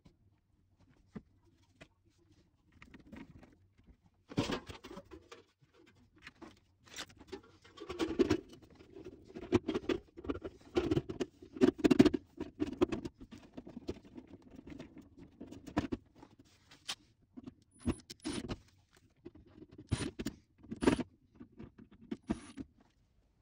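Galvanised sheet-steel cover panel of an air-conditioner's electrical box being handled and fitted, giving irregular metallic knocks, scrapes and rattles. Near the end come a few brief bursts from a cordless driver fastening it.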